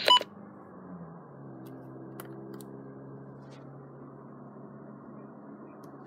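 A short electronic beep as a button is pressed on a Midland NOAA weather alert radio. Then a steady low hum with a few faint clicks.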